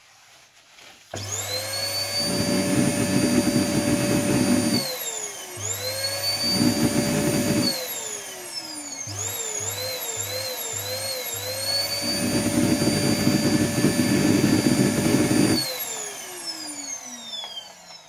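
Canister vacuum cleaner motor revved like a sports car engine: its whine spins up about a second in, holds steady, winds down and back up twice, blips quickly up and down about five times in the middle, holds again, then winds down in a long falling whine near the end.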